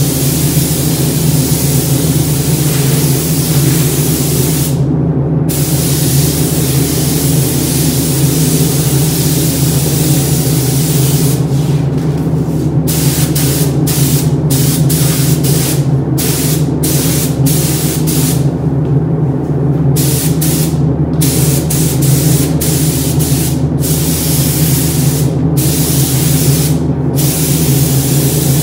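Gravity-feed paint spray gun hissing as it sprays a car body panel. The hiss cuts off briefly each time the trigger is released between passes: once about five seconds in, then many short breaks in the second half. A steady low hum runs underneath.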